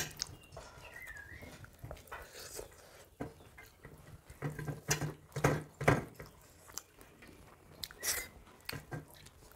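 Chewing and the sound of fingers working food on steel plates, with scattered short clicks and a cluster of louder ones about halfway through.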